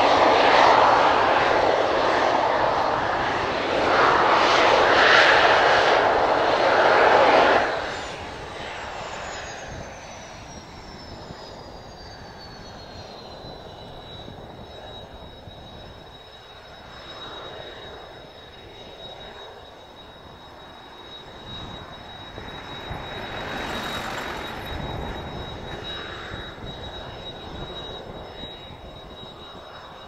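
Kawasaki T-4's twin turbofan engines. Loud jet noise for the first seven or so seconds drops off suddenly, leaving a high whine that falls in pitch and then holds steady at idle. Strong wind rumbles on the microphone.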